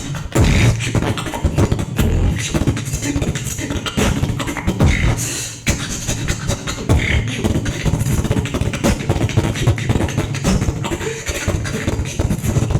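Live solo beatboxing: a dense, continuous run of mouth-made drum sounds, sharp clicks and snare-like hits over deep bass.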